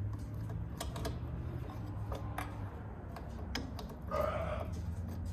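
Scattered light metallic clicks and taps of a wrench and nuts being worked off an outboard motor's carburetor, over a steady low hum. About four seconds in comes a short belch.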